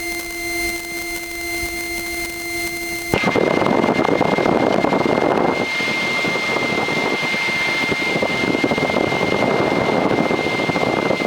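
Piper PA-28-161's four-cylinder Lycoming engine running, heard in the cockpit over the intercom with a thin, steady electronic whine. About three seconds in, the sound jumps abruptly from a steady hum to a louder, rougher engine noise.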